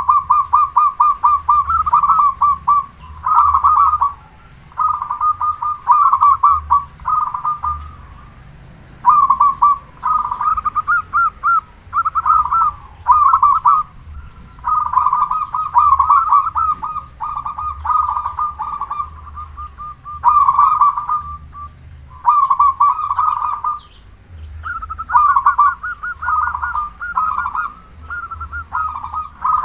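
Zebra dove (perkutut) cooing loudly: bouts of rapid staccato notes, each bout a second or two long, repeated with short pauses.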